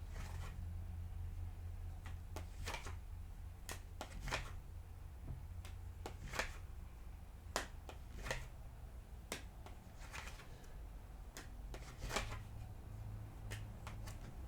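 Tarot cards being handled: a series of light, sharp clicks and snaps, irregularly spaced about a second apart, over a low steady hum.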